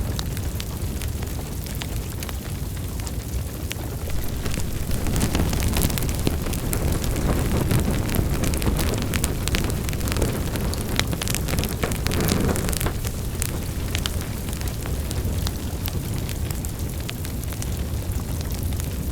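Wood fire in a fireplace crackling and popping with many sharp snaps over a low steady rumble of flames, which swells louder for several seconds in the middle.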